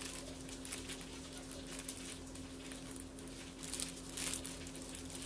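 Faint room background: a steady low electrical hum with soft rustling hiss, briefly louder about four seconds in.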